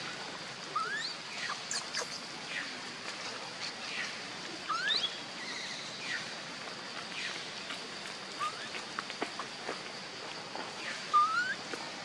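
Forest ambience: short rising chirps every few seconds, the loudest near the end, and scattered light ticks over a steady high-pitched hiss.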